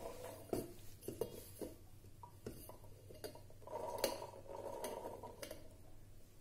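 Soaked sago pearls being transferred from a bowl into a mixer-grinder jar: scattered light clinks and knocks of kitchen utensils against the jar, with a faint scraping in the second half.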